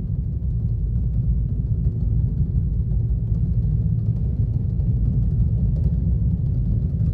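Deep, steady booming rumble resonating through an empty water silo, its long reverberation keeping the sound continuous.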